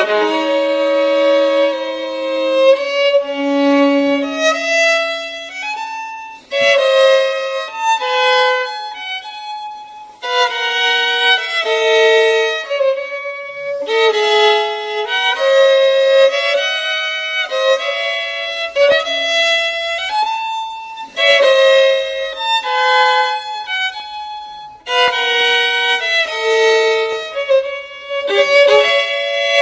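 Violin music: a melody of held notes, played in phrases a few seconds long with brief pauses between them.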